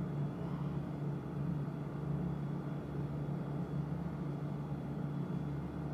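Steady noise of blowing air with a constant low hum, from a fan running in the room.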